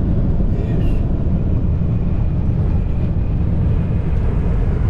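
Steady low rumble of a car driving: road and engine noise.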